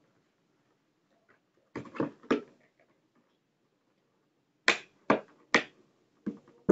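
Clear rigid plastic clamshell packaging clicking and knocking as it is handled: a cluster of clacks about two seconds in, then three sharp clicks about half a second apart near the end.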